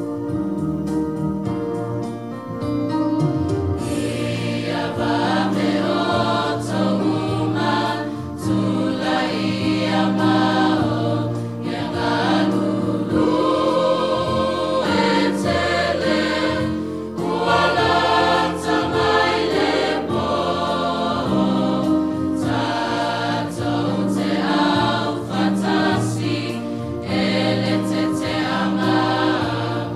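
Mixed church choir singing a Samoan hymn. It enters about four seconds in over sustained keyboard chords and carries on with the accompaniment.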